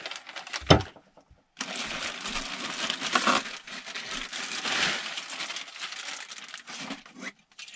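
Clear plastic packaging bags crinkling and rustling steadily as they are handled, with one sharp knock a little under a second in.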